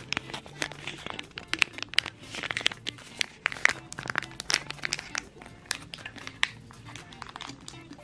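Plastic packaging crinkling and clicking, with many irregular sharp crackles, as Downy fabric softener is squeezed out into a small perfume bottle.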